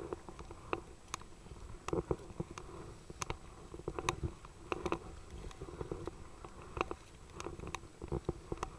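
Choppy waves slapping against the side of a kayak hull in irregular sharp splashes, about two a second, over wind rumbling on the microphone.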